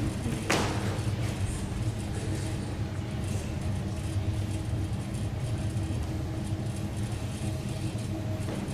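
Steady low rumble with a faint hum over it, and one sharp click about half a second in.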